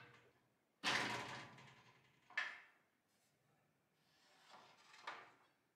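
Handling sounds of a rubber hose being worked off its fitting with pliers: a sudden scraping pull about a second in that fades over a second, a short sharp click a little later, and a softer rubbing of the hose near the end.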